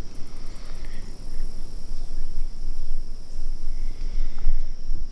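Insects droning in one steady high tone, over a low rumbling noise on the microphone.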